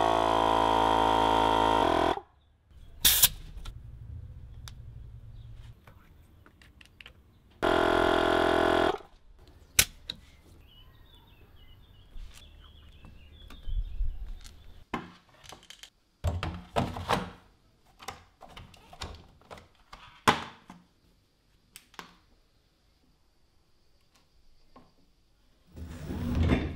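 Portable electric tyre inflator running in two short bursts, about two seconds at the start and about a second around eight seconds in, pumping up a garden cart's pneumatic tyre. Its motor climbs in pitch as it starts. Between and after the bursts come scattered clicks and knocks of hands handling the wheel.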